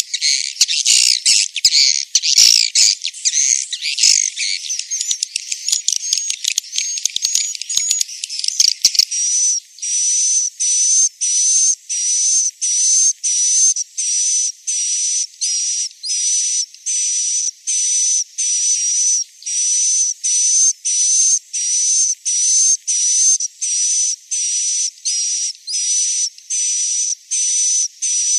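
Swiftlet roosting lure sound ('suara inap'), a recording played in swiftlet houses to make young swiftlets settle and stay: dense, overlapping high twittering chirps, changing about nine seconds in to a looped buzzy chirp repeating about one and a half times a second. It is all high-pitched, with no low end.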